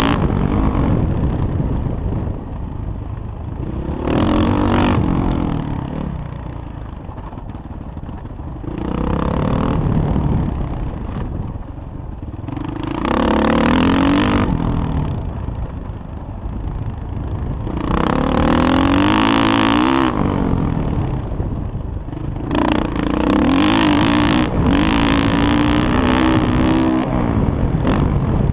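Motocross dirt bike engine revving hard and backing off as the rider works the throttle around the track, surging in loud bursts every four to five seconds, with a longer stretch at high revs near the end.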